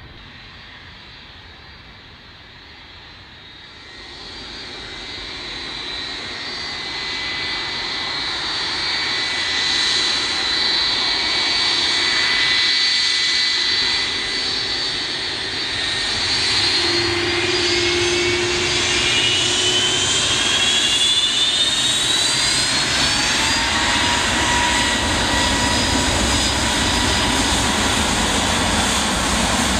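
Jet airliner engines, the Boeing 757-236's twin Rolls-Royce RB211-535 turbofans, growing louder as the aircraft taxies closer. A little past the middle a whine rises in pitch as the engines spool up to takeoff thrust, and they then run loud and steady as the takeoff roll begins.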